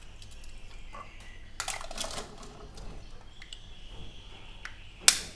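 Boiled balut (fertilized duck egg) shells being cracked and peeled off by hand: small crackling clicks, a longer crunching crackle about two seconds in, and one sharp click near the end.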